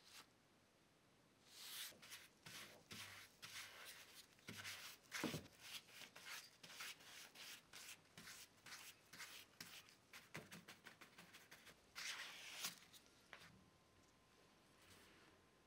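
Faint, irregular hand-work strokes, dozens of short rubbing and scraping sounds on a workpiece, with louder scrapes about five seconds in and again around twelve seconds.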